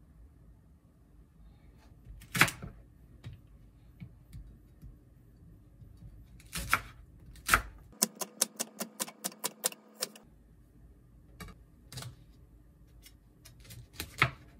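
Kitchen knife chopping on a plastic cutting board: a few separate knocks, then a quick even run of about five chops a second for two seconds while a green onion is sliced into rounds, then more scattered knife taps.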